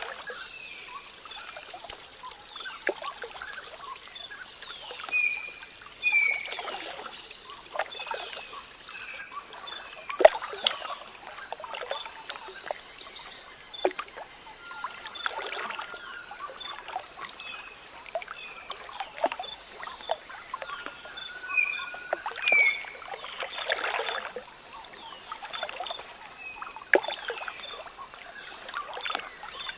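Outdoor ambience: small birds chirping repeatedly over a soft steady hiss, with scattered brief rustling or splashing noises.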